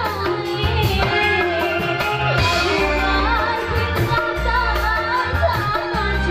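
A woman singing a wavering melody into a microphone with a live band: electric guitar, bass and a steady drum and cymbal beat.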